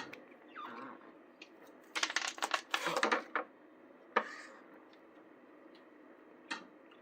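Cough drops clicking and rattling as a cat bats at them: a burst of quick clatter about two seconds in, then a single sharp tap and, near the end, a fainter one.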